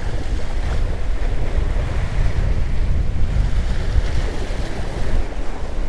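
Surf washing and breaking against the jetty rocks in strong wind, with wind buffeting the microphone as a steady low rumble.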